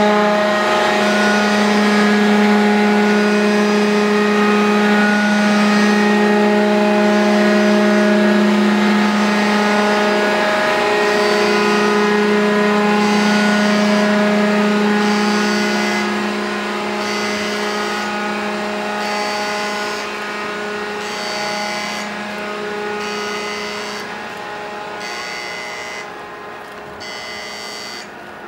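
Aircraft elevator machinery of the helicopter destroyer JS Ise (DDH-182) running as the rear elevator lifts from the hangar to the flight deck: a loud steady hum made of several tones, fading out near the end as the platform reaches the deck. Over the second half, a high-pitched pulsing sound repeats about once a second.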